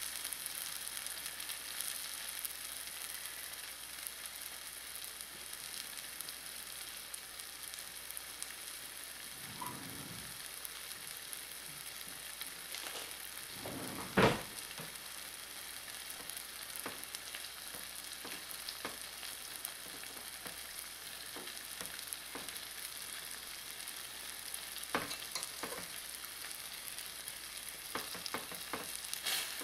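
Beef fillets searing in an onion and ají sofrito in a stainless steel pot, sizzling steadily with scattered crackles as the meat seals before liquid is added. A single sharp knock comes about halfway through, and a spoon stirs the meat near the end.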